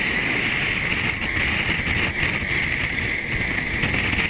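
Steady rush of wind over a handheld GoPro Hero 2 riding a moving roller coaster train, mixed with the train's running noise on the track.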